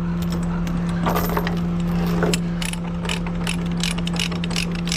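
Ratchet chain binder being cranked tight on a tie-down chain, its pawl clicking about three or four times a second, most of it in the second half. Under it runs a steady low hum.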